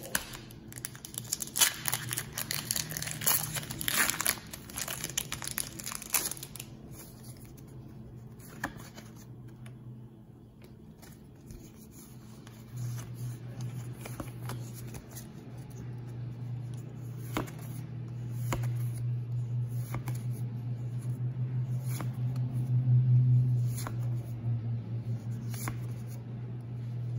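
Foil booster-pack wrapper crinkling and tearing as it is pulled open, for the first several seconds. Then trading cards are handled and flipped, with soft clicks and slides. From about halfway a steady low hum sets in and swells near the end.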